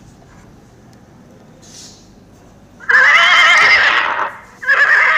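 Horse whinnying twice: two long, wavering neighs, the first starting about three seconds in and the second following right after it.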